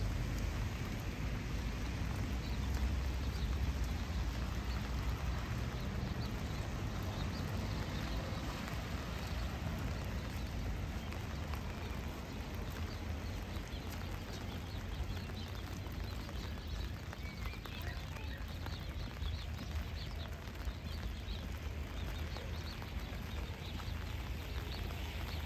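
Steady heavy rain falling, with many small drop ticks over an even hiss and a constant low rumble underneath.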